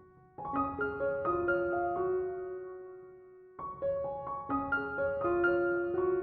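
Background piano music: a short run of notes about half a second in that rings and fades away, then a second run of notes that starts a little past halfway.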